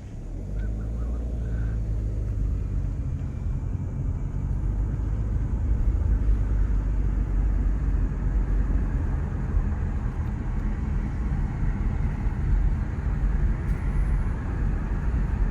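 Road noise of a moving car heard from inside: a steady low rumble of engine and tyres that swells over the first couple of seconds and then holds.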